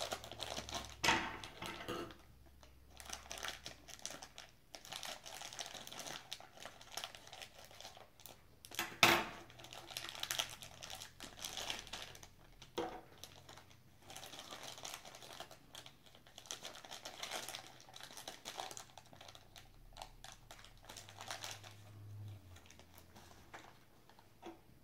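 Clear plastic bag crinkling irregularly as it is handled and a small toy figure is worked out of it, with one sharp knock about nine seconds in.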